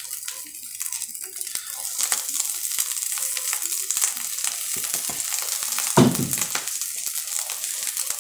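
Egg frying over high heat in a frying pan, with a steady sizzle and the small scraping clicks of a spatula working under the egg's edge; a louder knock about six seconds in.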